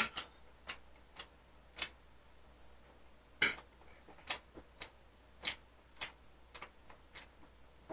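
Faint, irregular small clicks of someone eating, about one or two a second: chewing and mouth noises close to the microphone, with a slightly louder tap of cutlery on a plate at the start.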